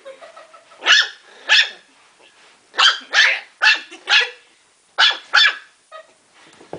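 Morkie puppy, ten weeks old, barking: about eight short, high-pitched yaps in quick groups.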